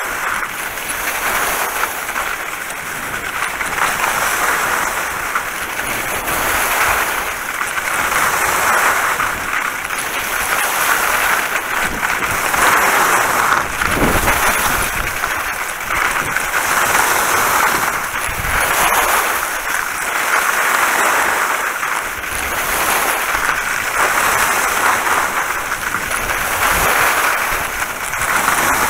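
Skis carving down a wet, slushy piste, the edges scraping the snow in a hiss that swells and fades about every two seconds with each turn. A few low buffets of wind on the camera microphone.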